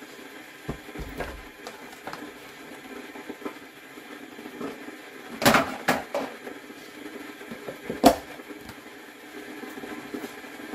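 Kitchen clatter: a few sharp knocks and clinks, the loudest about five and a half and eight seconds in, over a steady low hum.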